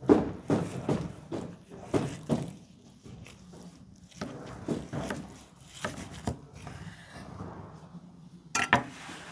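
A large kitchen knife sawing down through a tall cheeseburger on a wooden cutting board: short strokes about two a second at first, then sparser, with a sharper, brighter scrape about eight and a half seconds in as the knife comes out.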